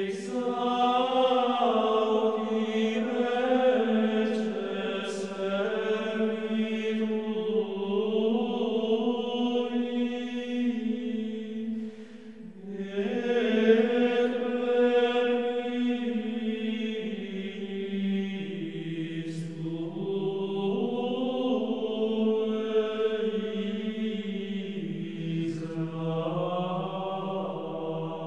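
Slow, chant-like background music of long held notes that shift in pitch every few seconds, with a brief pause near the middle.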